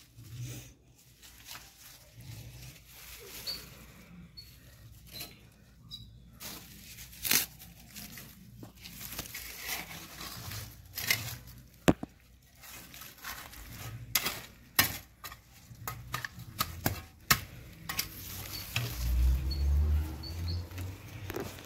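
Soil and dry roots rustling and scraping as a taioba tuber is set into a hole and the earth is worked around it by hand, with many short irregular clicks and crackles. A low rumble comes in near the end.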